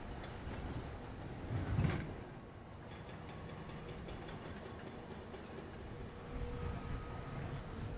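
Heavy earthmoving machinery running: a steady diesel rumble with some clanking, swelling louder about two seconds in.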